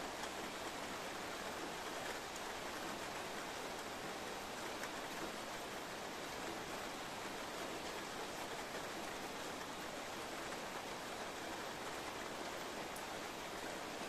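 Steady rain falling during a thunderstorm, heard from indoors, with a few faint ticks near the end.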